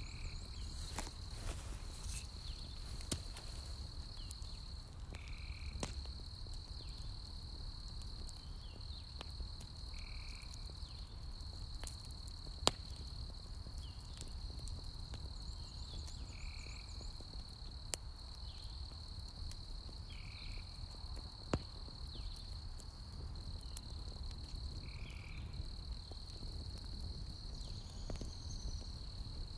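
Campfire of burning logs crackling, with scattered sharp pops. Behind it runs a steady high insect trill, like crickets, and a brief call that repeats about every five seconds.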